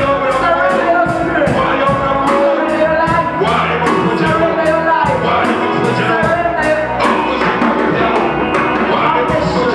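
Worship music with singing over a steady beat of about two strokes a second.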